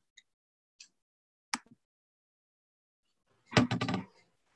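Near silence from a video call between speakers, with a few faint clicks in the first couple of seconds and one short loud burst of sound about three and a half seconds in.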